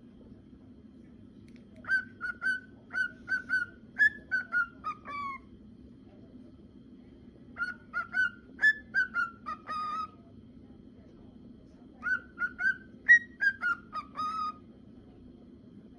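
Male cockatiel singing its whistled song: three phrases of short clear whistles with pauses between, each phrase ending in a few notes that step down in pitch.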